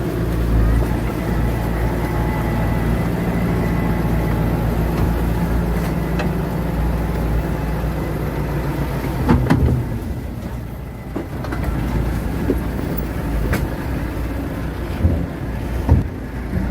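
Heavy diesel engine of earthmoving machinery running steadily with a low drone. It eases off about ten seconds in, and a few sharp knocks follow.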